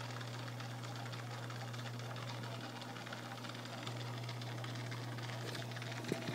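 Aquarium pump humming steadily in a low, even tone under a constant hiss, with a couple of light taps just before the end.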